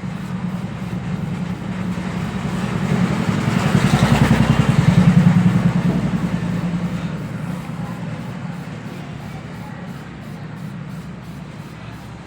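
A motor vehicle's engine running, growing louder over the first five seconds or so and then slowly fading, as if it passes by.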